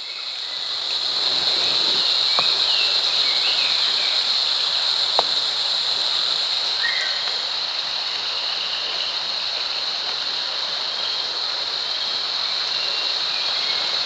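A river flowing steadily, with a constant high-pitched drone above it and a few faint bird chirps.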